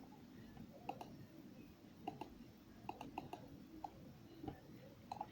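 About a dozen faint, sharp clicks of small hard objects, irregularly spaced and several coming in quick pairs.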